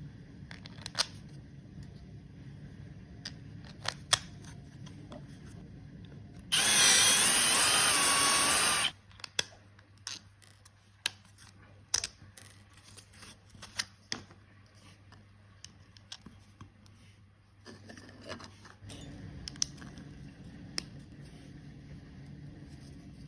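A small electric motor whirs loudly for about two seconds, its pitch wavering. Before and after, small hard parts are handled with scattered clicks and taps.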